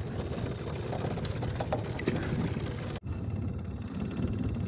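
Small Mercury outboard motor running with a steady low rumble, with a few faint handling clicks in the first half and an abrupt cut about three seconds in.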